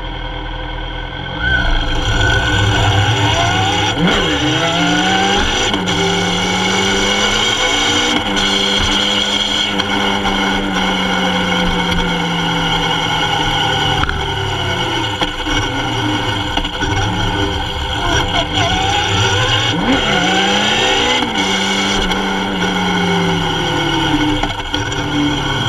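Kawasaki Z750's inline-four engine under way, its pitch climbing repeatedly as it accelerates through gear changes, holding steady for a few seconds mid-way, then dropping and climbing again.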